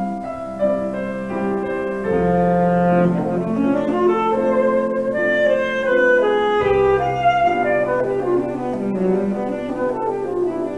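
Alto saxophone playing a classical concert solo with grand piano accompaniment: the saxophone carries a melody of held and moving notes over the piano.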